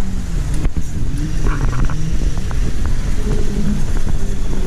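Car driving along: a heavy low rumble of engine and road noise, with the engine note rising and falling, heard from inside the moving car.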